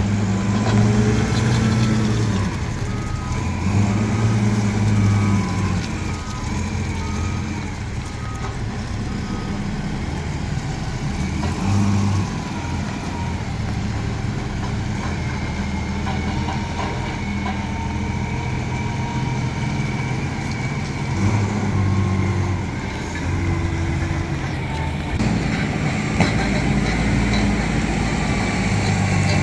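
Heavy diesel engine of a Nippon Sharyo DH408-95M crawler pile driver running, its note rising and falling as it works, louder again near the end. A few seconds in, a warning alarm beeps about eight times, roughly once a second.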